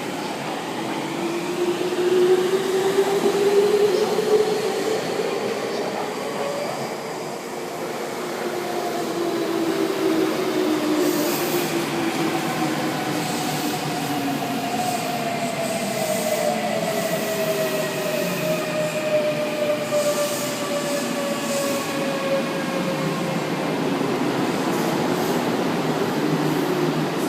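Electric commuter train braking into a station, its motor whine gliding slowly down in pitch over rail and wheel noise, with a few short high-pitched bursts midway.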